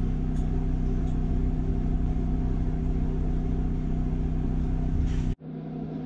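A steady mechanical hum with a fixed pitch and a low rumble beneath, from a machine running in the workshop. About five seconds in it cuts out abruptly, then comes back thinner.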